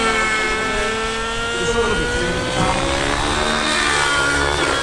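Nitro RC helicopter flying fast forward passes, its engine and rotor whine dropping in pitch near the start, holding steady, then rising again near the end as it comes round.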